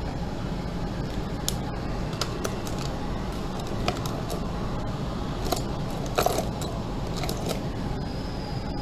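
Steady low background hum with scattered faint clicks and small taps.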